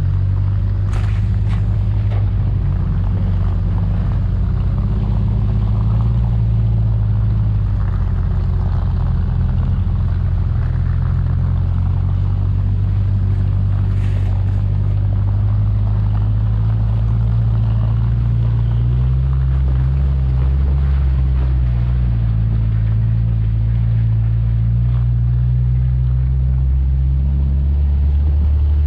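Off-road 4x4's engine running steadily as it drives a rough dirt track, with a few knocks from the vehicle over bumps. The engine note changes about two-thirds of the way through.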